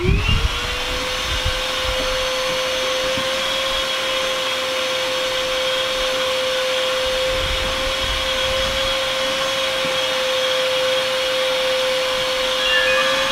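Vacuum cleaner switched on: its motor whine rises over about half a second as it spins up, then runs at a steady pitch.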